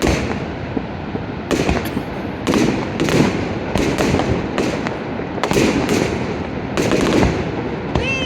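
Fireworks display: a steady run of booming bursts and crackles, roughly two bangs a second, over a continuous rumble.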